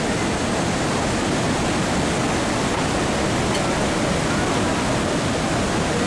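Manavgat River white water rushing over rocks and a low waterfall, a steady, unbroken rush of water.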